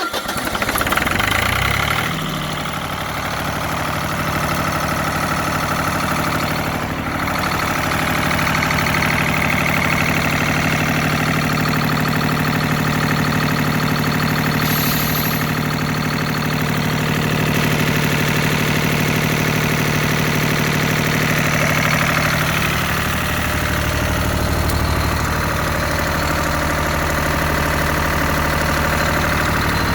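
Lister diesel generator set (11 kW, 240 V) starting up: the engine fires and its pitch rises over the first two seconds, then it settles into a steady, even run.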